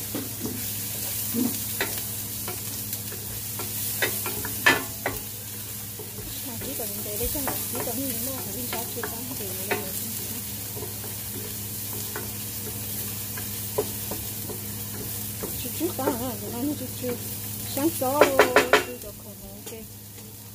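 Chopped garlic and chili sizzling in hot oil in a square nonstick frying pan while a wooden spatula stirs and scrapes, with scattered light taps against the pan. A quick run of louder knocks comes near the end.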